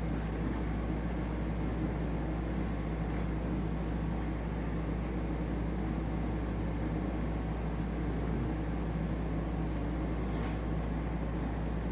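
Steady low machine hum that does not change, with a few faint, brief rustles of seat-cover fabric being worked by hand.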